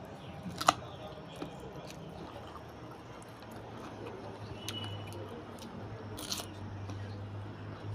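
A person eating chicken curry: chewing and crunching, with scattered sharp clicks, the strongest under a second in and another cluster near the end, over a steady low hum.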